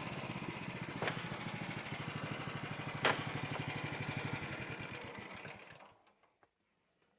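Small gasoline engine of a bandsaw sawmill running down and stopping about six seconds in, its firing pulses fading and slowing, with two sharp knocks about one and three seconds in.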